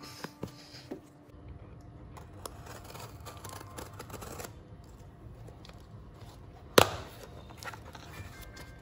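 Cardboard shipping box being handled and opened by hand: scraping and rustling along its taped edge, then one sharp, loud knock of the box near the end.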